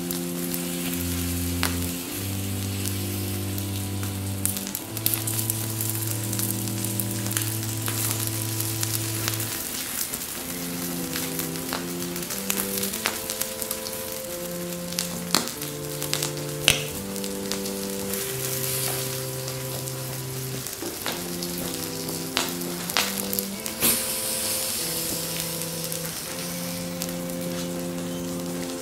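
Burning, melting plastic toy truck sizzling and crackling, with frequent sharp pops. Under it runs slow background music of held low notes that change every second or two.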